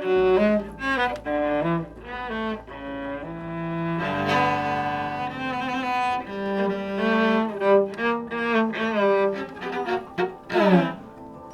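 Cello played as a solo: a run of short, separate melodic notes over a low hum, then about four seconds in, fuller and longer notes, with a sliding note near the end.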